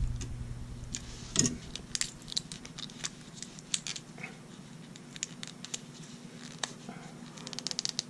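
Small plastic clicks and crackles as a battery is pried out of its stiff blister packaging with a small pocket-knife blade and fingers. The clicks come irregularly, with a sharper one about a second and a half in and a quick run of clicks near the end.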